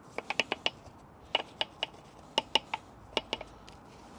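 A detail brush knocking and clicking against the spokes and caliper of an alloy wheel as it is worked around them: sharp, ringing clicks in short, irregular runs of two to five.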